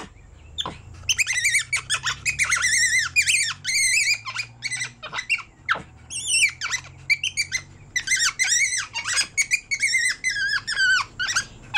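Tufted capuchin monkey (mono maicero) calling: quick runs of high-pitched, squeaky calls that waver up and down in pitch, with a short break around the middle.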